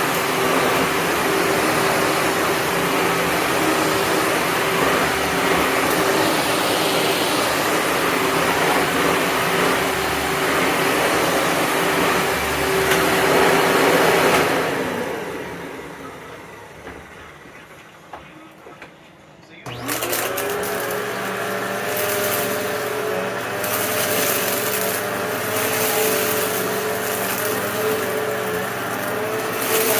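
Upright vacuum cleaner with a 12-amp motor running steadily, then switched off about 14 seconds in, its motor winding down over a few seconds. A few seconds later a vacuum is switched on and its motor quickly spins up to a steady run.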